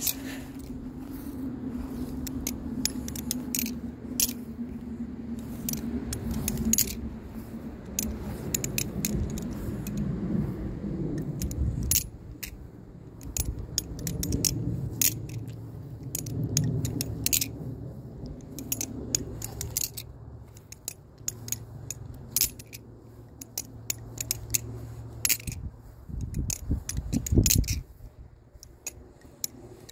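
Butterfly-knife trainer being spun through rollovers: quick, irregular metallic clicks and clacks of the handles and pivots, over a low background rumble.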